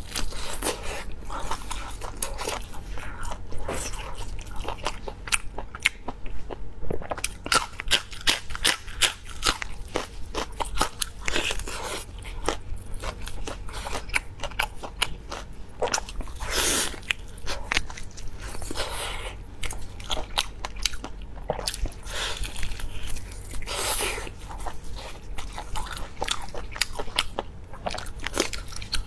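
Close-miked biting and chewing of tender beef rib meat: a dense, continuous run of wet mouth clicks, with a couple of longer, louder noisy sounds about 17 and 24 seconds in.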